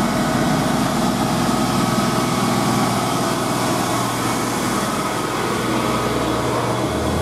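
Heavy truck's diesel engine running steadily as a UD Quester GWE330 tractor unit pulls a lowbed trailer loaded with a CAT 330 excavator slowly past at close range, its engine under load and its tyres on the road.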